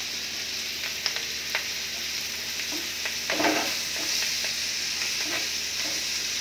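Onions and green capsicum sizzling steadily as they are stir-fried in a pan over a high flame, with a wooden spatula scraping and clicking against the pan a few times, loudest a little over three seconds in.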